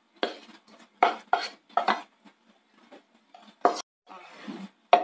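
A utensil scraping the cooked onion-tomato mixture out of a pan into a stainless-steel mixer-grinder jar. It makes several sharp metal clinks against the pan and jar, with a longer scrape about four seconds in.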